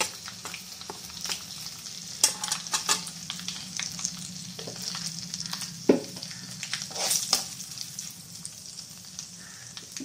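Spice tempering sizzling in hot oil in a kadhai: mustard seeds, cumin, coriander seeds and curry leaves frying with freshly added turmeric and red chilli powder. A steady hiss runs throughout, broken by sharp clinks and knocks, the loudest about six seconds in.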